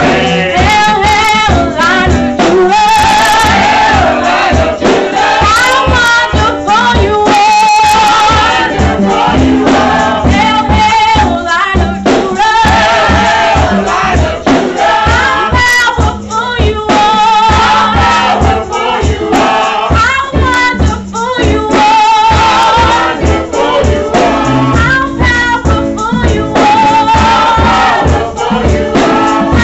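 Children's gospel choir singing, led by a woman singing into a microphone, over live accompaniment with a steady beat.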